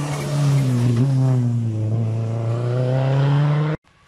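Rally car engine at full throttle passing close by on a special stage. Its pitch dips briefly about a second in, then climbs steadily, and the sound cuts off abruptly near the end.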